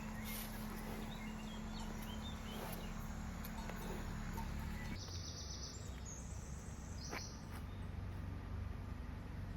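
Steady rush of river water, with a few short bird chirps a second or two in and a couple of faint clicks.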